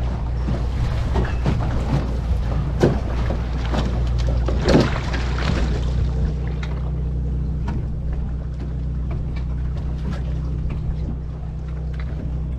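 Boat engine running steadily, with irregular knocks and splashes in roughly the first half.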